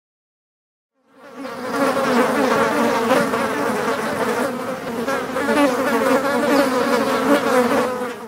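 A swarm of wasps buzzing: a dense, steady, wavering drone. It fades in about a second in and fades out at the end.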